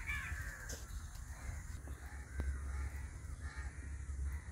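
Crows cawing a few times in the background, faint, over a low steady rumble.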